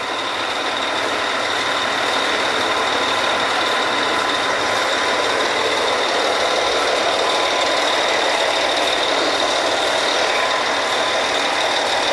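Land drilling rig machinery running steadily during drilling: a loud, even engine din with steady high-pitched whines over it.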